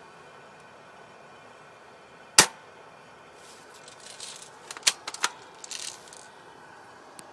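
Spring-powered L85 airsoft BB rifle firing: one loud sharp crack about two seconds in, then another crack with a few quick clicks close behind it around five seconds in. Short scratchy hisses come before and after the second shot, fitting the single-shot spring being cocked by hand between shots.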